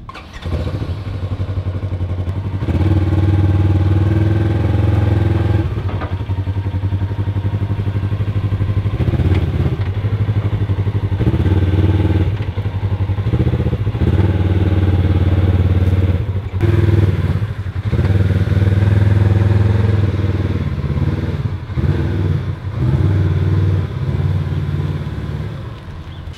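Side-by-side UTV engine running, throttle repeatedly rising and easing off as the machine is driven down off a trailer; the sound fades away near the end.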